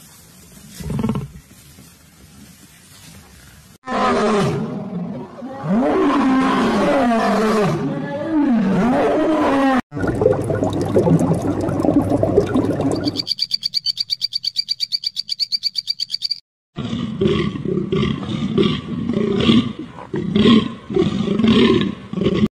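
A string of different animal calls cut one after another. Gliding, pitched calls come first, then a fast, even pulsing buzz with a steady high tone, then a run of repeated calls about two a second.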